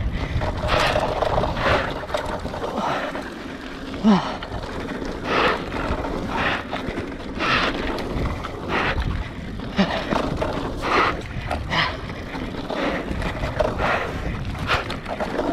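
Scott Scale 970 hardtail mountain bike descending a dirt trail: tyres rolling and the bike rattling over bumps in irregular knocks. A short squeak comes about four seconds in and another near ten seconds.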